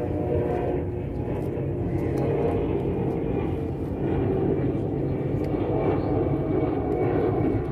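A steady, low engine drone with a faint pitched hum in it.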